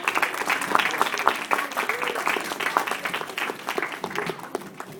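A small group of people clapping in applause, dense and irregular, dying away near the end.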